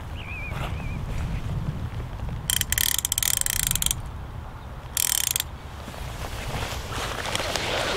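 A fishing reel ratchet clicking rapidly in two runs, one of about a second and a half and then a short one of about half a second. Wind rumbles on the microphone throughout.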